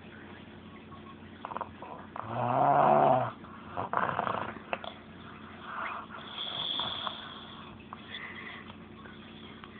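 Snoring: one loud, drawn-out pitched snore a little over two seconds in, followed by a breathy exhale and a softer snore about six seconds in.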